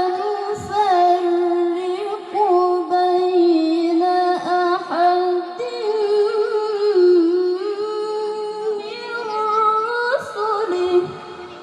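A high solo voice chanting unaccompanied in long held notes with ornamented turns, the pitch stepping up sharply about ten seconds in.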